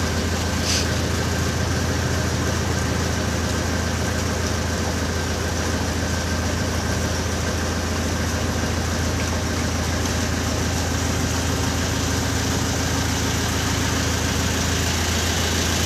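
A boat's engine running steadily with a low drone, under a constant hiss.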